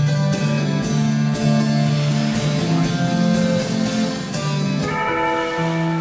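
Calm instrumental background music: plucked string notes over low held bass notes. About five seconds in the plucking stops and a held chord rings on.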